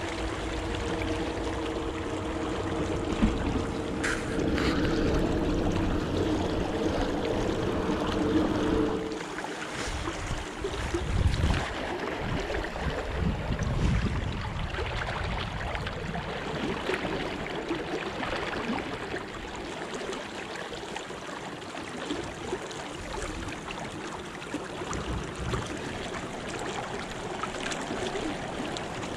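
A swollen river, running high after rain, flowing and swirling close by, heard from wading in it. A steady low hum sits under the water noise for about the first nine seconds.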